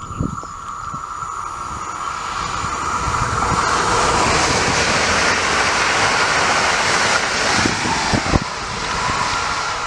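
Newag Impuls electric multiple unit passing at speed. The rush of wheels on rails and air swells over the first few seconds, is loudest in the middle and eases off near the end.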